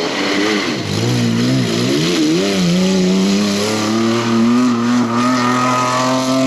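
Off-road race car engine under load, its revs dipping and wavering up and down for the first two or three seconds, then climbing steadily as it pulls hard.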